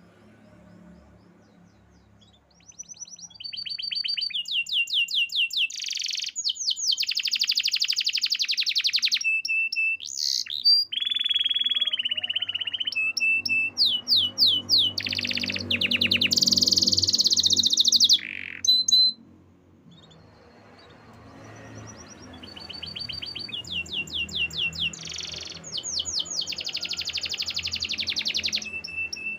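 Domestic canary singing: long phrases of fast trills and rapidly repeated high notes, breaking off for about two seconds past the middle before starting again.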